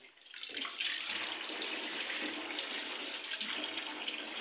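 Tap water running steadily into a sink, starting about half a second in.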